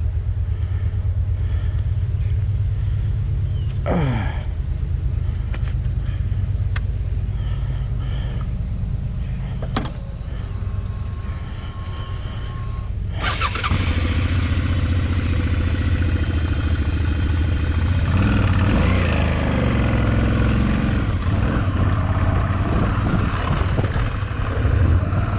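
Long train passing, with a steady low rumble; the rolling noise becomes louder and fuller about halfway through.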